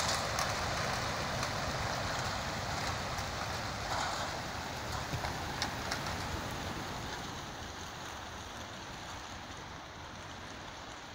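Wingbeats of thousands of racing pigeons taking off together from the crates of transport trucks: a dense, even rushing whir that fades slowly as the flock climbs away, with a few sharp wing-claps in the middle.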